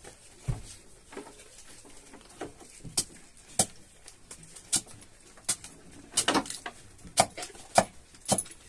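A large knife chopping chayote squash on a small wooden board: about a dozen sharp chops at an uneven pace, coming closer together in the second half.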